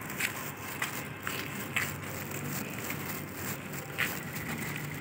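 Footsteps scuffing along a gritty road while walking, with a few irregular light, sharp clicks.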